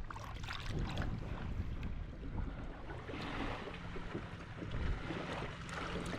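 Wind and water noise around a small fishing boat, with scattered light knocks and a brief louder rush of noise about halfway through.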